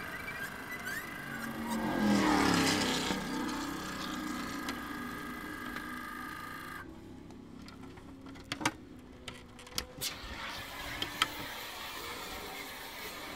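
Single-seater racing car's engine running as the car rolls to a stop, with a louder swell about two seconds in. The engine drone cuts out a little past midway, followed by a few sharp knocks and clicks as the driver climbs out of the cockpit.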